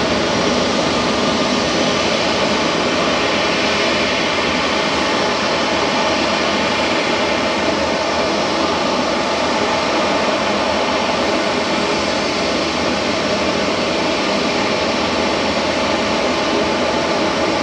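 Jet airliner engines running with a loud, steady roar that holds at the same level and pitch throughout.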